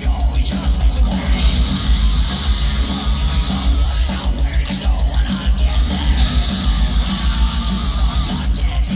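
A live melodic death metal band playing at full volume through a large PA: distorted electric guitars over rapid bass drum, recorded from the crowd.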